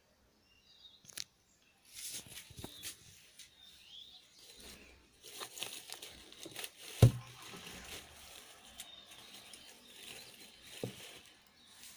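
Light rustling and handling noise with scattered soft clicks, starting about two seconds in, and one sharp knock about seven seconds in with a smaller one near the end.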